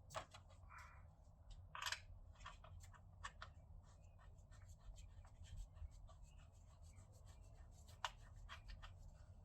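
Faint, irregular clicks and scrapes of hand tools, a socket wrench working the bolts, over a low steady hum, with sharper clicks about two seconds in and near the end.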